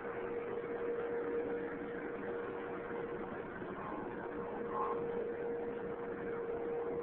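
Vacuum cleaner running steadily, a constant motor whine over its rushing airflow.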